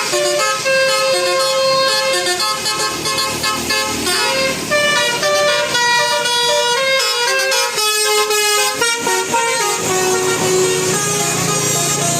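A bus's Basuri telolet horn, a multi-note musical air horn, playing a quick melody of changing notes, with a longer held note near the end.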